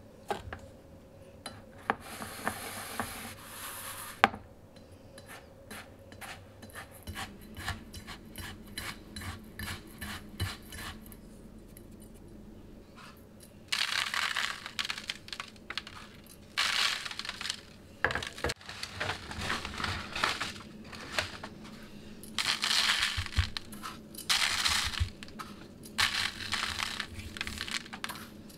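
Granulated sugar poured into a bowl of kosher salt with a short hiss, then the two stirred together in quick small clicks. From about halfway through, the salt-sugar mix is sprinkled over a raw pork shoulder, the grains hissing and pattering onto the meat and butcher paper in repeated one-to-two-second bursts.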